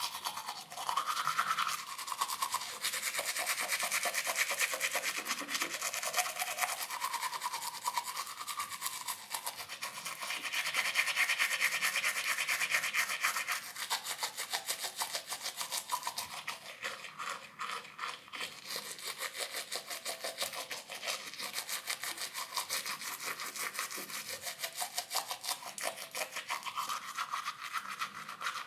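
Teeth being brushed with a toothbrush: a continuous scratchy scrubbing of quick back-and-forth bristle strokes, changing in tone as the brush moves around the mouth. It is loudest a little less than halfway through.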